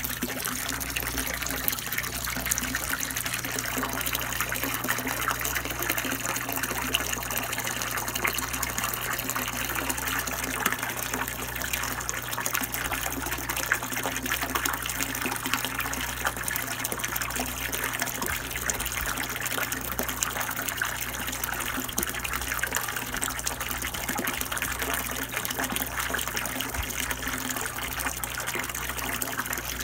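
A steady stream of water pouring into a fish tank, splashing continuously on the surface, with a steady low hum underneath.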